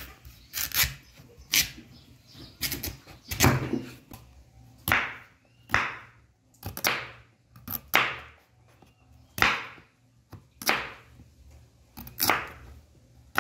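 Large kitchen knife slicing the hard rind off a pumpkin on a wooden cutting board: about a dozen short cutting strokes, roughly one a second.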